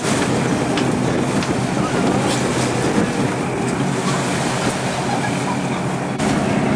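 Boat's engine running steadily with water rushing and splashing along the hull as it cruises.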